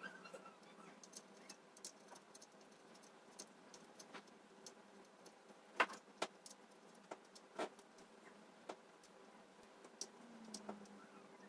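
Scattered small clicks and light taps of hand tools against a circuit board during soldering, a few louder ones around the middle, over a faint steady hum.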